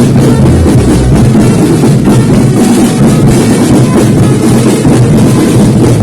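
Marching drum band playing loudly, with bass drums and snare drums beating together.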